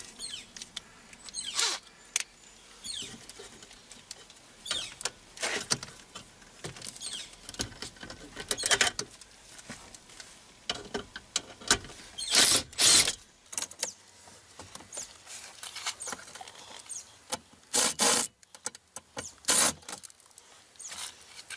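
A 1/4-inch cordless impact driver run in several short bursts, each half a second or less, backing out 7 mm hex-head trim-panel screws, with softer clicks and rustles between them.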